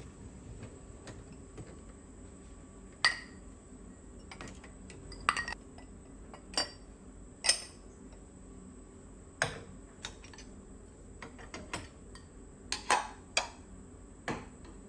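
Irregular clinks and knocks of hard household objects, dishes or utensils, being handled, about a dozen in all, over a faint steady high-pitched hum.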